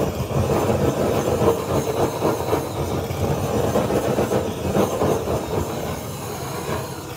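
Handheld butane blowtorch flame played over raw pig skin, an uneven, rough rushing hiss that weakens near the end. The torch is one its user calls a bit broken.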